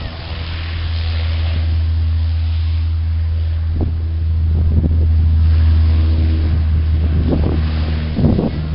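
Dash 8 twin turboprop airliner rolling along the runway, its propellers and engines giving a steady low drone that grows louder in the first second or so and then holds. Wind buffets the microphone a few times near the end.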